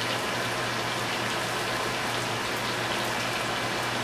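Steady sizzling of food frying in skillets: chicken pieces frying in oil and a rice-and-pasta mix sautéing in butter.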